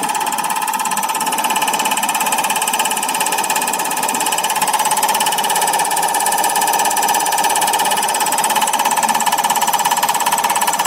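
Common rail injector test bench running a test on a Bosch common-rail injector: a fast, even mechanical ticking of the injector being pulsed, over a steady whining tone.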